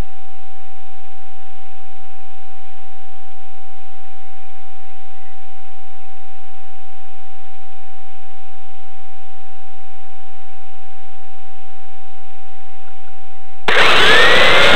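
A faint steady electronic tone while the RC car stands still. About a second before the end, the Kyosho Inferno GT's Novak HV Pro 5.5 brushless motor cuts in suddenly and loudly, its whine rising and falling in pitch as the car pulls away.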